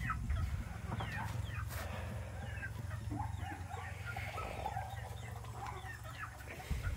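Chickens clucking and giving short, high, falling chirps close by, over a low steady rumble.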